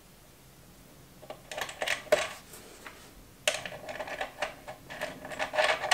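Small metallic clicks and rattles of a battery cable's terminal and nut being fitted by hand onto a stud of a boat master isolation switch, in two spells of handling.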